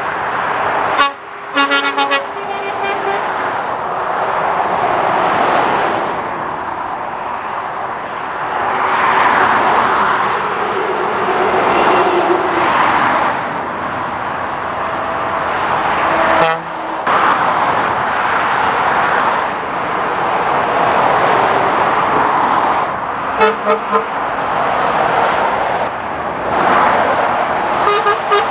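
Lorries and cars passing at speed on a dual carriageway: steady tyre and engine noise that swells and fades as each vehicle goes by. A horn toots in a few short blasts near the start and again, briefly, about four-fifths of the way through.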